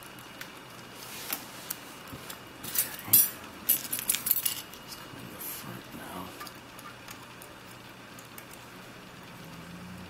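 Light metallic clicks and scrapes of lock picks and a tension tool working in the keyway of a CISA 220/50 padlock during single-pin picking, with a cluster of louder metal clinks between about three and four and a half seconds in.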